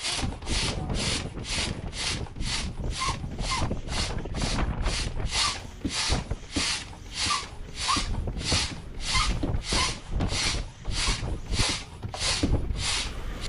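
Hand pump inflating an inflatable stand-up paddleboard: a steady rhythm of air rushing through the pump with each stroke, about two to three strokes a second, with light squeaks here and there.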